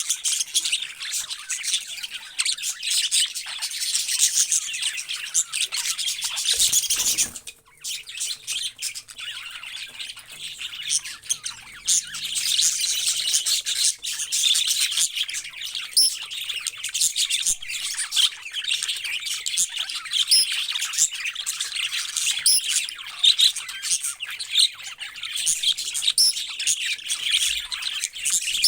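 A flock of parrots chirping and chattering all at once in a dense, high-pitched din, which drops out briefly about seven seconds in.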